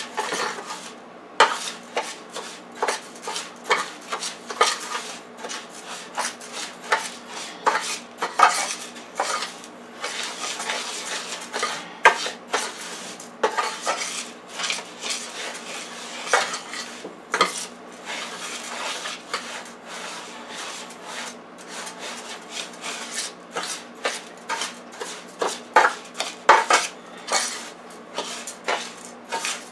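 A spoon stirring and scraping dry, uncooked rice against a metal baking pan: irregular scrapes and light clinks, one to three a second, as seasoning is mixed into the grains.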